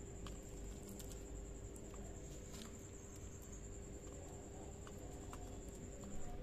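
Faint, scattered clicks and ticks of a black kite's beak tearing at a lizard held in its talons, over a steady high whine and a low hum.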